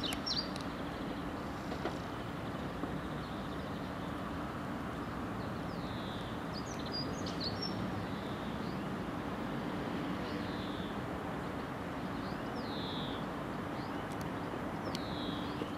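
Southern Class 377 Electrostar electric multiple unit running slowly over the pointwork, a steady low hum with track noise. Birds chirp briefly about six times over it.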